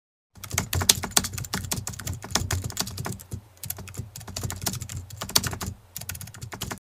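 Keyboard typing sound effect: rapid keystrokes in quick runs, with two short pauses, stopping abruptly near the end.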